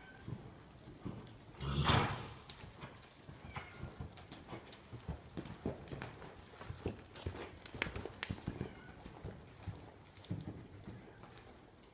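Hoofbeats of a quarter horse loping under a rider, a run of short knocks, with a louder noisy burst about two seconds in.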